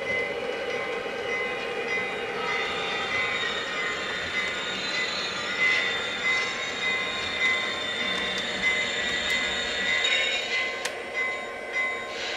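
Model SD80MAC diesel locomotive running along the layout track with a steady drone and wheel noise, and a few sharp clicks near the end.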